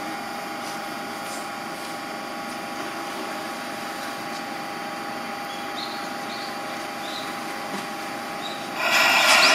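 Seibu 8500 series 'Leo Liner' train standing at the platform, its onboard equipment giving a steady electrical hum with a high whine. A louder rushing noise rises near the end.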